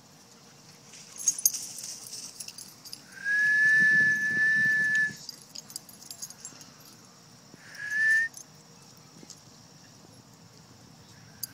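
Someone whistling: one long steady high note lasting about two seconds, then a short note that rises at the end. A few light clicks come just before.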